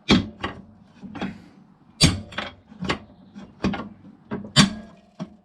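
Hammer striking a steel pry bar about ten times at an irregular pace, each blow a sharp metallic clank with a short ring. The blows are driving the end of an ATV's front drive shaft (CV axle) out of its fitting.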